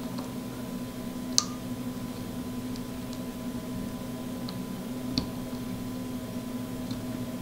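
A few sparse small clicks and ticks as a precision screwdriver tightens a tiny M2 screw into its nut, the sharpest about one and a half seconds in, over a steady low hum.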